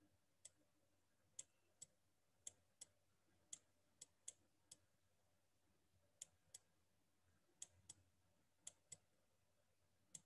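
Faint, sharp clicks of a stylus tip tapping on a tablet as handwriting is written, irregular and often in pairs, about one or two a second.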